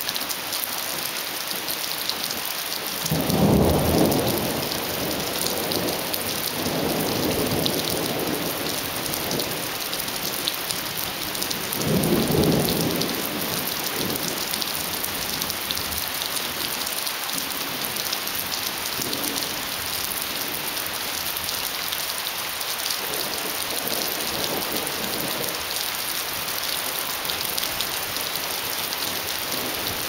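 Steady rain falling during a thunderstorm, an even hiss throughout. Thunder rumbles swell and fade several times, loudest about four seconds in and again about twelve seconds in, with fainter rolls between.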